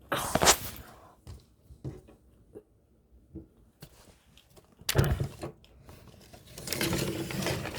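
Objects being handled at close range: a few short knocks and clicks, a louder thump about five seconds in, and a stretch of rustling near the end.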